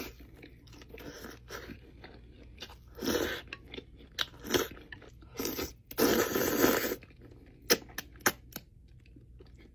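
Close-miked crunching and chewing of Wingstop original hot chicken wings, in uneven bites, with a longer loud crunch about six seconds in and a few sharp clicks soon after.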